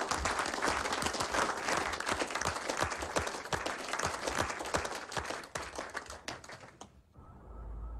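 A roomful of office workers clapping and applauding, which stops abruptly about seven seconds in, followed by a low rumble.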